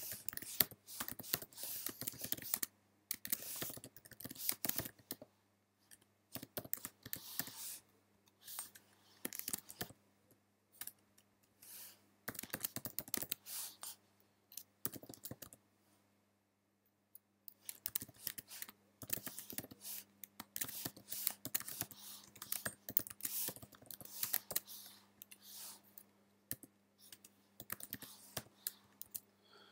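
Typing on a computer keyboard in irregular bursts of quick key clicks, with a pause of about two seconds near the middle.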